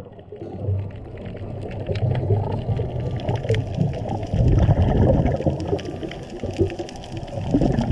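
Muffled underwater sound picked up by a submerged camera: low churning water movement, swelling louder about halfway through, with scattered sharp clicks.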